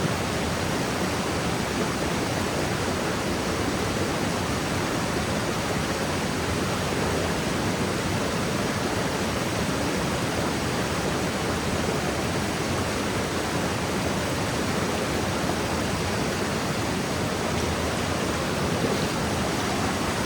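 River water rushing, a steady, even, full-bodied noise with no distinct splashes or changes.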